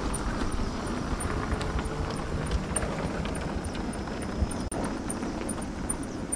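Wind rumbling on the microphone with road and tyre noise, recorded while riding an electric scooter; no engine note is heard.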